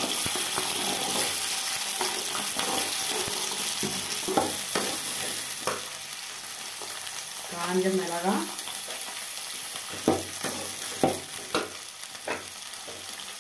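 Whole shallots sizzling in hot oil in a steel kadai, stirred with a metal perforated ladle that scrapes and clinks against the pan. Dried red chillies go in partway through; the sizzle is loudest at first and eases after about six seconds.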